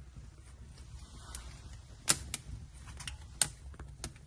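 Wood fire crackling in the firebox of a newly built fireplace-grill on its first lighting: irregular sharp pops, the loudest about two seconds in and again past three seconds.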